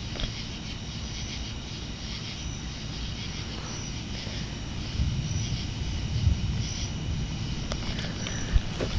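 Steady low rumble of outdoor background noise, with faint high chirps recurring about every second and a half and a single thump near the end.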